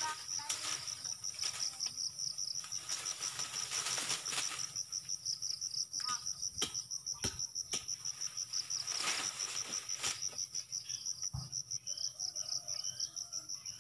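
Insects trilling: a steady, rapidly pulsing high chirp that carries on without a break, with a few short knocks and rustles over it.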